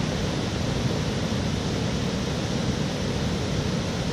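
Steady rushing outdoor noise with nothing standing out from it.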